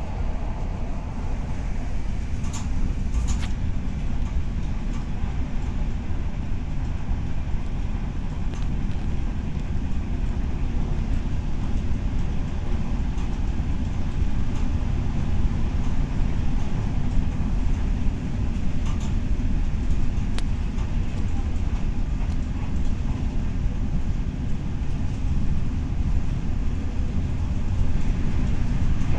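Renfe series 470 electric multiple unit running, heard from on board: a steady low rumble of wheels on track, with a few sharp clicks near the start and again about two-thirds of the way through.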